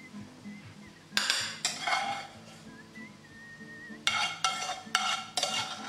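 A metal spoon scraping and clinking against a metal frying pan as cooked food is served out onto a plate, in short clatters: two about a second in, then four more in quick succession from about four seconds in.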